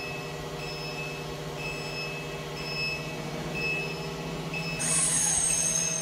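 Lifting-type vacuum emulsifier raising its lid and agitator frame: a steady motor hum with a high warning beep repeating about once a second. A loud hiss starts near the end.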